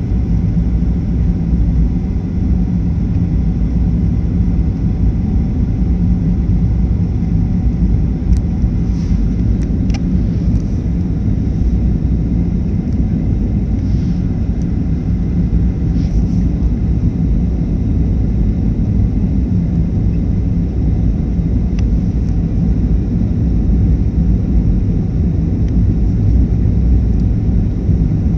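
Steady low rumble of a Boeing jet airliner's engines and airflow heard from inside the cabin on final approach, with a few faint clicks near the middle.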